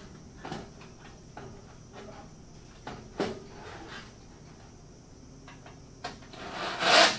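Galvanized metal dust-collection ducting being handled overhead: a few sharp clanks and knocks of sheet-metal pipe, then a louder rasping, sliding noise near the end.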